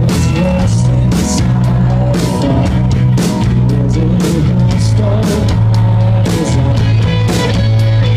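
Live rock band playing loudly: drum kit hitting at a steady beat over held bass and electric guitar notes.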